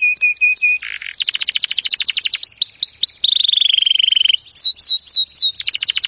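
Wild Atlantic canary (Serinus canaria) singing a loud, varied song: repeated whistled notes, rapid trills, sweeping slurred notes and a buzzy held phrase in the middle, ending on another fast trill.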